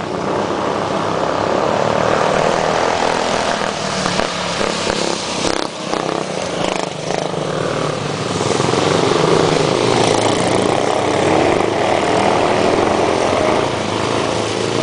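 Racing go-kart engines running hard at high revs on a dirt oval, a loud, steady buzzing drone that dips briefly about six seconds in and swells again as karts pass.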